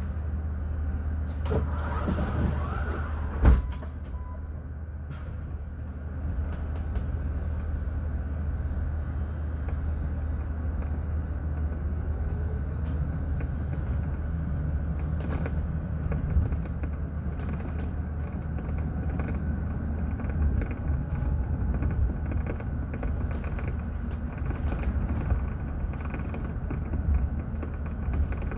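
Mercedes-Benz eCitaro electric city bus running with a steady low hum and rattles. A sharp knock comes about three and a half seconds in, and a faint rising whine about twelve seconds in.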